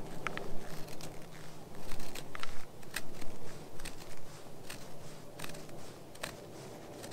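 Fixed-blade bushcraft knife shaving thin curls off a dry pine stick: a string of short, irregular scraping cuts, one or two a second, growing sparser near the end.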